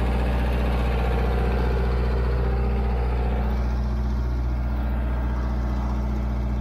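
Stump grinder's engine running steadily with a deep, even hum while the machine is worked from its control levers.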